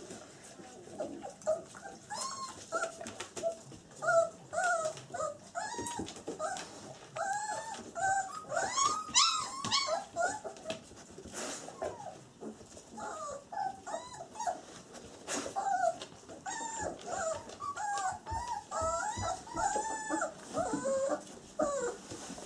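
Young black German Shepherd puppies, about 20 days old, whimpering and squeaking over and over in short high calls that rise and fall in pitch.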